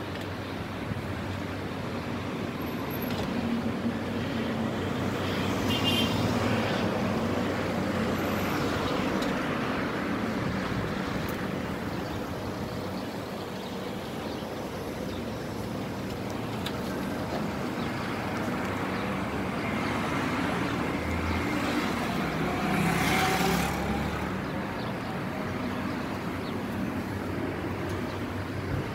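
Road traffic: cars driving past in a steady hum, with one vehicle passing louder about two-thirds of the way through.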